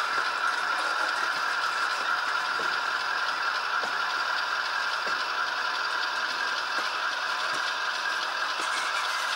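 Athearn model train tank cars rolling along the track: the metal wheels and trucks make a steady rattling whir with faint scattered clicks.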